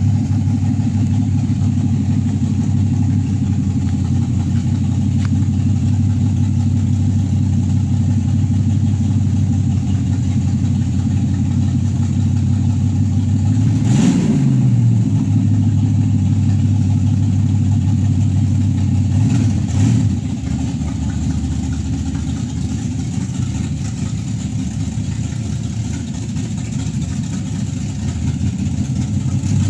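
Carbureted V8 engine of a V8-swapped Datsun 240z running steadily at idle. About halfway through there is a sharp click and a brief dip in engine speed, and the engine then settles back.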